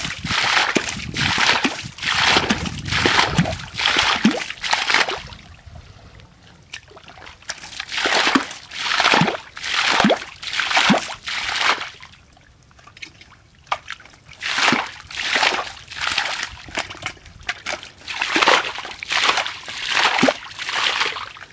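Liquid mud and water being scooped up and flung aside, over and over: a run of wet splashes and sloshes, one or two a second, with two short pauses.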